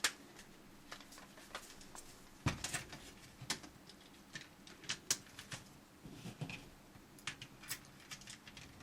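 Light, irregular clicks and taps of the plastic magazine cartridge halves being handled and fitted back together.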